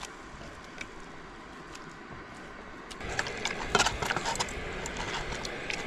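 Cooking utensils clinking and scraping against cookware while butter and breadcrumb coating are prepared, a quick run of sharp clicks and scrapes starting about halfway through after a few quiet seconds.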